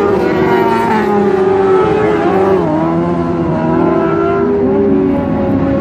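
Several dirt-track race car engines running hard around the speedway, overlapping, their pitches rising and falling as the cars accelerate and lift through the turns.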